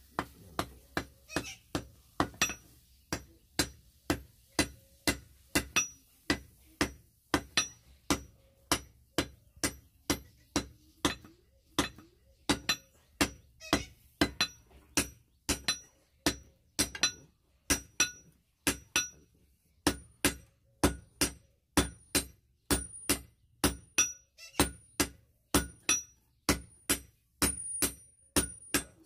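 Blacksmith's hand hammer striking red-hot steel on an anvil, about two blows a second, each ringing briefly.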